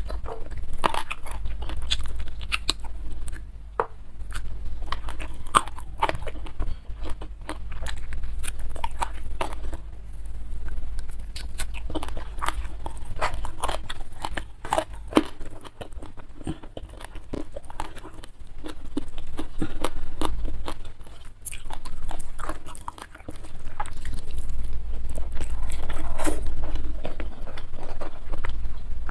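Close-miked eating: wet chewing with frequent crisp, irregular crunches as a person bites and chews raw green petai and young jengkol beans with rice and boiled fish.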